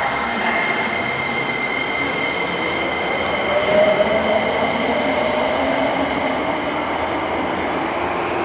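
Tokyo Metro 7000-series subway train pulling out of an underground station. Its running noise echoes off the station walls, a steady high whine sounds throughout, and a second tone rises in pitch from about a third of the way in as the train gathers speed.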